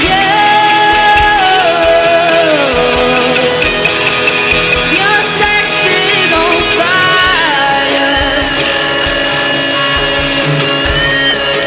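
Rock band playing live: electric guitars with sliding notes over bass and a steady drum beat.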